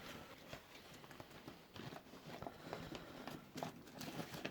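Faint handling sounds: scattered light clicks, taps and rustles of a brown-paper template being handled and fitted against the car's panel.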